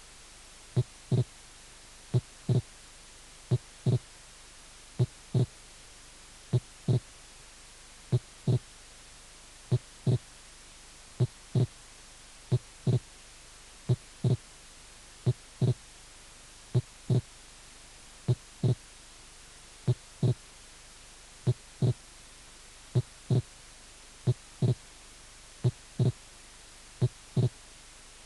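Recorded human heart sounds as heard through a stethoscope: regular pairs of low thuds, the first and second heart sounds, about forty beats a minute over a steady hiss. This is the teaching example of wide, mobile (variable) splitting of the second heart sound.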